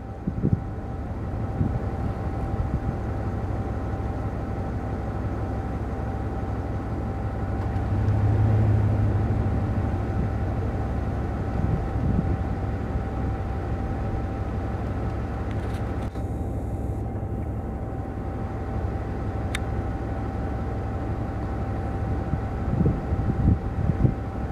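Wind rumbling on the microphone outdoors, swelling briefly a few seconds in, with a faint steady hum underneath.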